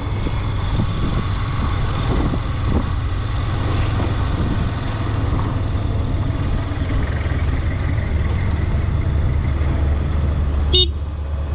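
Motorcycle engine running steadily at low speed, heard from on the bike, with a deeper rumble joining about seven seconds in. A brief sharp sound comes near the end.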